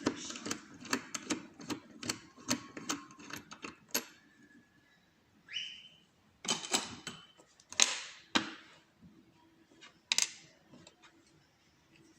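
Quick run of sharp metallic clicks, then a few short scrapes, from a pin-tumbler challenge lock being handled and taken apart, with a tool being worked into its cylinder.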